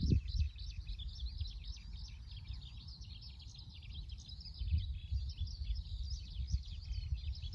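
Many small birds chirping rapidly together in a busy, continuous chorus, over a low rumble.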